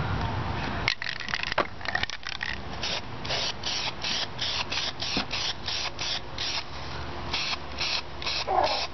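Aerosol spray-paint can spraying in quick short hissing bursts, about three a second, after a few clicks and spurts about a second in. A short falling cry near the end.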